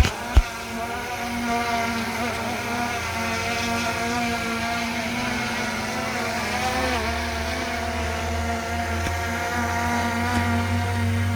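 DJI Mini 3 Pro drone's propellers whirring steadily as it hovers low. Two sharp clicks come right at the start, and wind rumbles on the microphone from about the middle onward.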